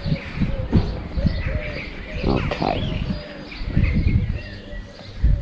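A pigeon cooing over and over in short repeated phrases, with small birds chirping faintly higher up, over low thumps and rumble.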